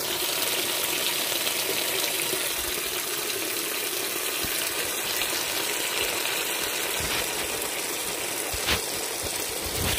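Water rushing steadily as a well pressure tank system is drained down, with a few light knocks in the second half.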